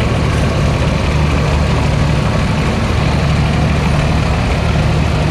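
Engine of a lifted John Deere garden tractor running steadily as it drives slowly past, a low, even engine drone.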